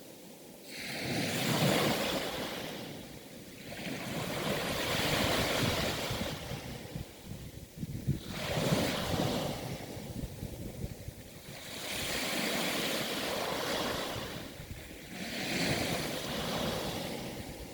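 Sea waves breaking and washing in, one swell of surf every three to four seconds, about five in all.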